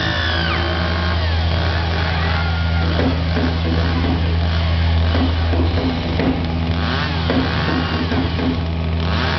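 Chainsaw engine running at a steady pitch, with no clear revving.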